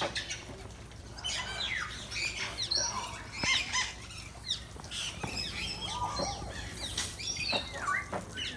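Many birds calling at once: a busy mix of short chirps, squawks and quick down-sliding whistles, overlapping without pause.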